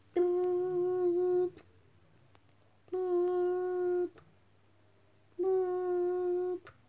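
A voice humming three long, steady, evenly spaced notes, imitating the ringing tone of a phone call going through.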